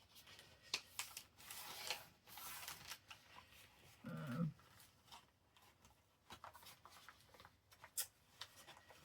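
Paper being handled on a desk: faint rustling and crinkling with small taps and clicks, and a short hum-like sound about four seconds in.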